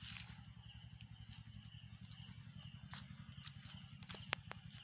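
Insects, cricket-like, chirping steadily in a high rapid pulse over a low steady rumble. A few sharp clicks come near the end, one louder than the rest.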